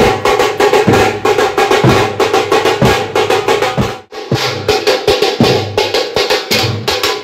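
Procession drumming: fast, loud drum strokes, about ten a second, with a deeper drum beat about once a second and a steady held tone over them. It breaks off briefly at about four seconds, then resumes.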